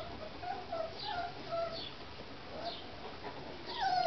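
Old English Sheepdog puppy whimpering: a string of short high whines, with a louder falling whine near the end.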